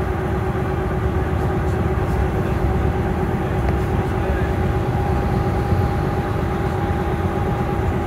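Electric bus traction motor giving a steady two-note whine at constant speed, over the low rumble of road and body noise heard inside the passenger cabin.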